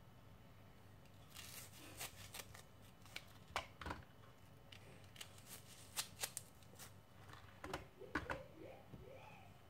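Knife cutting small red onions by hand: a string of faint, irregular snips and clicks as the blade goes through, with pieces dropping into a plastic chopper bowl.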